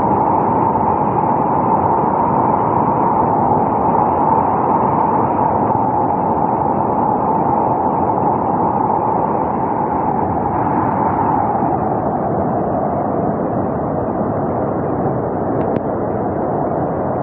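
Rushing floodwater: a loud, steady torrent noise without pauses.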